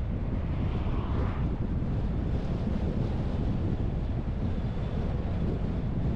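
Steady wind and road rumble from a car driving, with wind buffeting the microphone, and a brief higher hiss about a second in.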